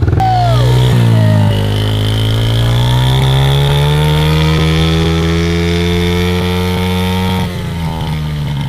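Small dirt bike engine running under throttle, its note climbing slowly for several seconds and then dropping near the end.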